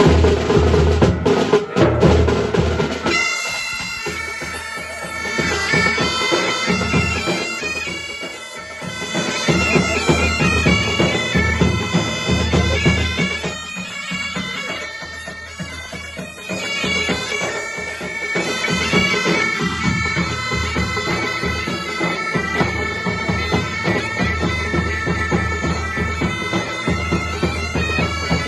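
Pipe band playing: bagpipes sounding a melody over a steady drone, with drums beating underneath. The first few seconds are mostly drumming before the pipes come in.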